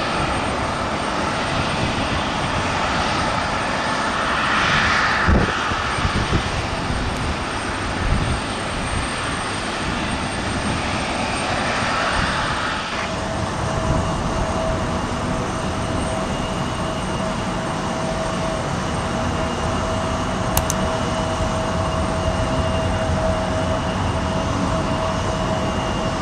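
Airliner jet engines running, a steady broad rush. About halfway through a steady whine sets in and holds.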